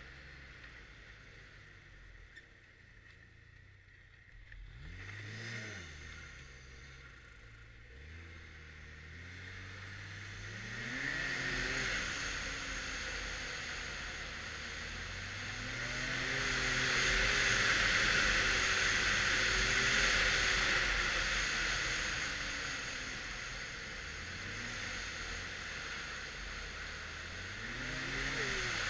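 Arctic Cat XF 1100 Turbo snowmobile's turbocharged three-cylinder four-stroke engine, heard on board while trail riding. It runs quietly at first, then the throttle is rolled on and off several times, the engine pitch rising and falling with each pull. The longest and loudest pull comes about halfway through, with a strong hiss over the engine.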